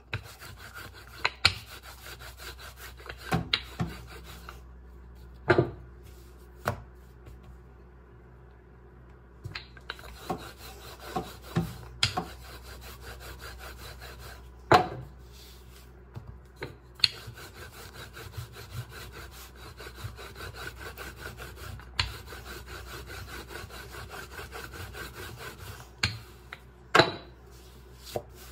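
Wooden rolling pin rolling out puff pastry dough on a floured countertop: a steady rubbing, with about a dozen sharp knocks scattered through it.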